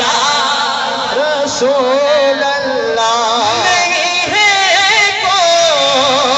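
A man singing a naat into a microphone, drawing out long, ornamented melodic phrases whose pitch slides and wavers up and down.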